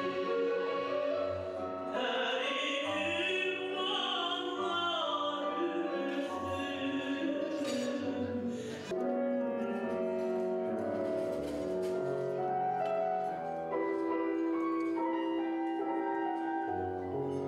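Live music: a singer with band accompaniment. The melody wavers and glides in ornamented runs through the first half, then settles into steadier held notes.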